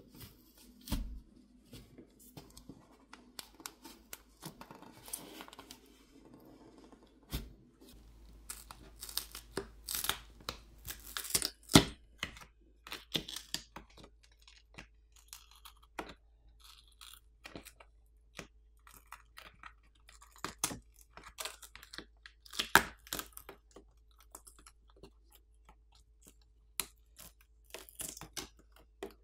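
Plastic pry pick working under a smartphone's glued plastic backplate: irregular clicks, crackles and tearing as the thick adhesive underneath lets go.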